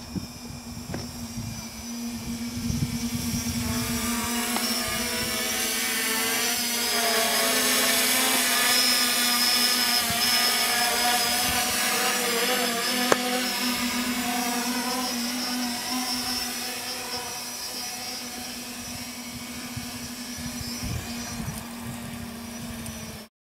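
Quadcopter's four Sunnysky X2212 brushless motors and propellers humming in flight, with several pitches that shift slightly as the throttle changes. The sound swells as the craft comes close overhead, eases as it comes down to land, and cuts off suddenly near the end.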